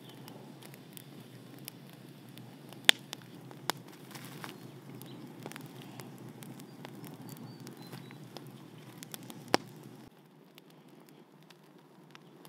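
Open wood fire crackling steadily, with a few sharp pops, as a plucked duck is held in the flames to singe it. The sound drops and thins about ten seconds in.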